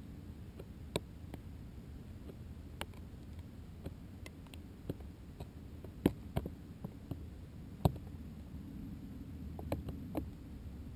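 A steady, muffled low rumble picked up inside a weather balloon's payload at high altitude, with scattered sharp clicks and ticks. Two louder clicks come a little past the middle.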